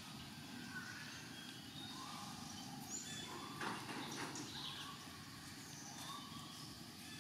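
Outdoor forest ambience with short chirping animal calls repeating about once a second, and a brief sharp click a little past halfway.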